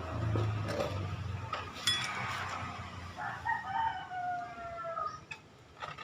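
A rooster crowing once, one long call falling slightly in pitch, starting about three seconds in. Before it, a low motor hum fades away after about a second, and a sharp click comes near two seconds in.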